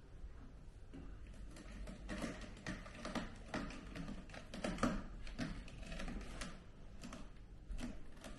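Irregular light taps and clicks of footsteps moving about on a hardwood floor, some with a dull thud, thickest in the middle.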